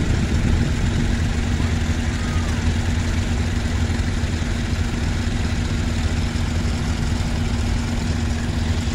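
Several vintage tractor engines idling together, a steady low, pulsing run.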